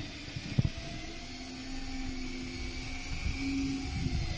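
Boat engine running at idle, a steady droning hum that shifts slightly in pitch, with wind buffeting the microphone and a single sharp knock about half a second in.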